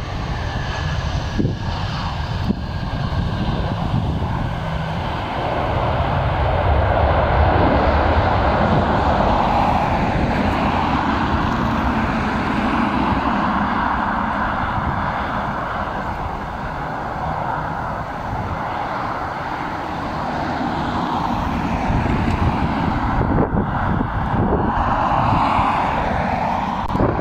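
Twin-engine jet airliner's engines heard as a steady rushing noise that swells about six seconds in and again near the end.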